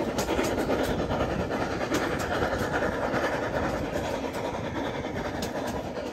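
Heritage railway carriage running along the track: a steady rolling rumble and rattle of wheels on rails, with irregular faint clicks.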